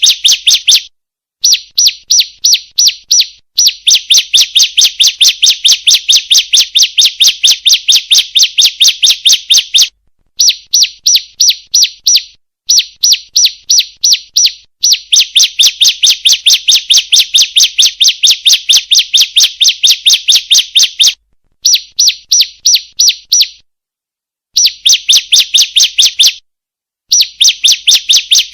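Female bar-winged prinia (ciblek) calling: a rapid, even series of sharp high chirps, about five a second, in runs of one to six seconds broken by short pauses. It is the female call used as a lure to get male ciblek to sing.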